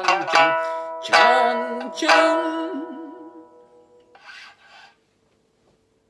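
Sanshin, the Okinawan three-stringed snakeskin lute, plucked slowly: a handful of notes, the last one left to ring with a wavering pitch as it fades. A brief rustle about four seconds in.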